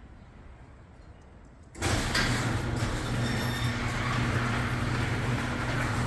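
Craftsman 1/2 HP chain-drive garage door opener starting up about two seconds in: a steady motor hum with the chain and door running along the track as the door moves.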